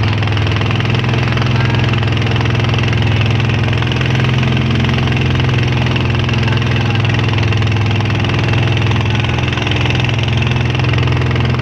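A small boat's engine running steadily under way, a loud, even drone with no change in speed.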